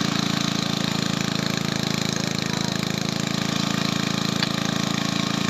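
A small engine running steadily with a fast, even pulse, of the kind that powers track-welding or rail-grinding equipment.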